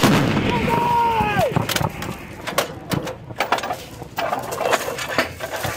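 M777 155 mm towed howitzer firing: the blast comes at the very start and its rumbling echo dies away over about a second and a half, with a shout over it. Then come a string of sharp knocks and clanks as the crew works the gun, with a few more short shouts.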